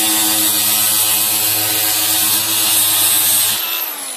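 Electric angle grinder cutting into a cardboard box: the motor whines steadily and the disc hisses loudly against the cardboard. About three and a half seconds in, the grinder is switched off and its whine falls in pitch as the disc spins down.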